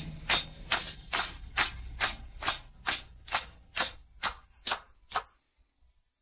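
Isolated drums-and-percussion track of a 1960s pop recording fading out: a steady beat of sharp, evenly spaced hits, about two a second, getting quieter until it stops about five seconds in.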